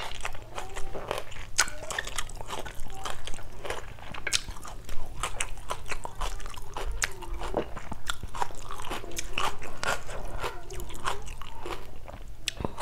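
Close-miked mouth sounds of someone chewing and crunching a mouthful of chicken salad with raw sliced onion: irregular wet clicks and crunches all the way through.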